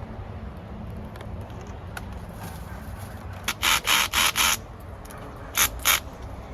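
Short rasping strokes, like something being scraped, filed or rubbed: four in quick succession a little past halfway, then two more near the end, over a steady low background.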